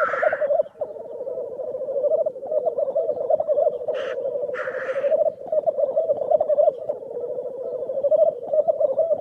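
Grouse calling: a steady, fast stream of low, rapid pulsed notes, broken by short, higher, noisier calls near the start and twice about four to five seconds in.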